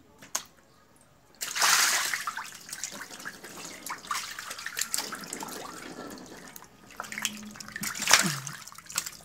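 Water splashing and sloshing in a shallow, draining fish pond, with a crowd of young Channa maru snakeheads thrashing and a hand moving in the water. It starts suddenly about a second and a half in, is loudest right then, and comes back up near the end.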